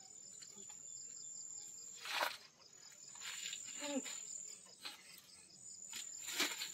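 Insects chirring steadily in a thin, high, pulsing tone. Two brief rushes of noise come through it, about two seconds in and near the end, with a short falling vocal sound around the middle.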